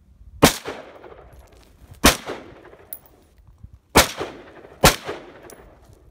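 Four single AR-15 rifle shots, semi-automatic, fired one at a time about half a second, two, four and nearly five seconds in, the last two less than a second apart. Each shot is followed by a short fading echo.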